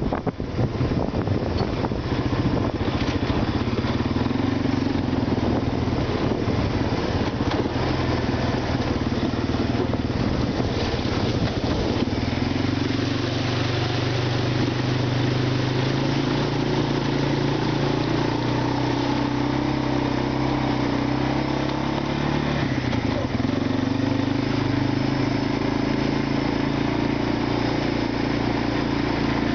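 ATV engine running while riding, its note shifting in pitch a few times as the speed changes, with the tyres splashing through shallow water about halfway through.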